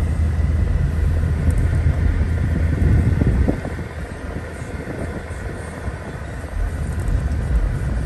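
Low rumble of a 2003 Mercedes-Benz CL55 AMG driving, heard from inside the cabin: its supercharged 5.4-litre V8 and tyre noise while cruising. The rumble eases a little about three and a half seconds in and picks up again near the end.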